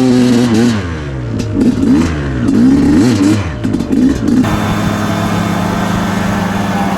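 KTM 250 SX two-stroke dirt bike engine revving up and down repeatedly, then from about four seconds in running at a steady pitch. It is running poorly, which the rider thinks may be jetting set wrong for the winter cold.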